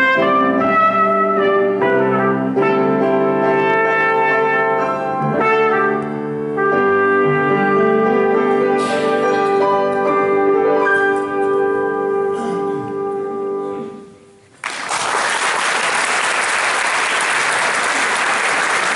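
Trumpet playing a melody over grand piano accompaniment, closing on a long held note that dies away about 14 seconds in. Then applause breaks out and keeps steady.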